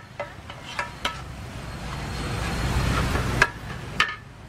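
Metal spatulas clinking and scraping against a large flat wok as noodles are stir-fried, with several sharp ringing clinks in the first second and two more near the end. A low vehicle rumble from the street swells in the middle and cuts off.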